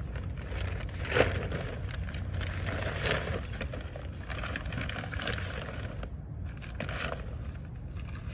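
Plastic shrink wrap being pulled off a boat, crinkling and crackling, with a sharp crack about a second in and smaller ones later.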